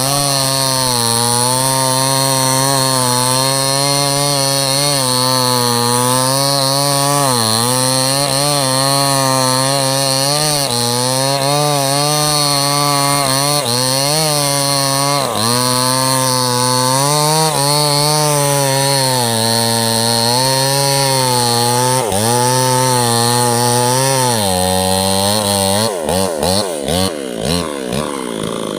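Two-stroke chainsaw running at full throttle, cutting into a large teak trunk; its pitch sags now and then as the chain bites under load. About 26 seconds in, it drops off the throttle and runs unevenly at a lower, pulsing pitch.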